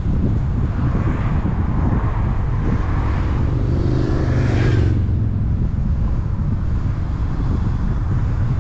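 Steady wind and road noise from a moving car. Another vehicle's engine grows louder and passes close by about four to five seconds in.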